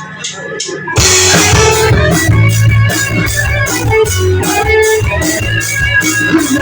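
Live rock band: guitar with light cymbal ticks, then the full band with drum kit, bass and guitar comes in loudly about a second in and plays on with steady cymbal strokes.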